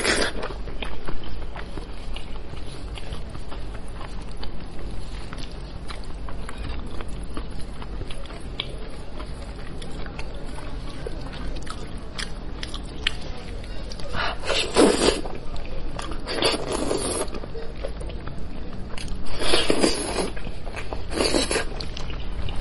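Close-miked eating of a braised sheep head: wet tearing and pulling of the meat and skin with gloved hands, small crackles and chewing, over a steady low hum. Four louder bursts of slurping and sucking at the meat come in the second half, and another right at the start.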